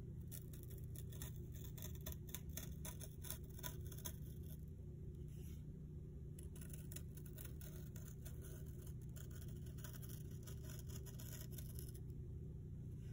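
Faint scratching of the pointed tip of a Take Your Pick tool tracing along a die-cut opening, scoring the release paper on the back of a foam sheet, with a short pause near the middle.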